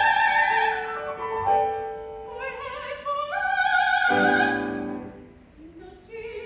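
Classical soprano singing an art song with piano accompaniment. A long high note with vibrato fades out about a second in, then the voice climbs in a rising phrase over piano chords.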